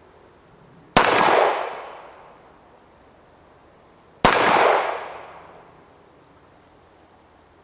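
Two shots from an Arsenal Firearms Strike One 9 mm pistol at a steel gong, about three seconds apart. Each shot is followed by a ringing tail that fades over about a second.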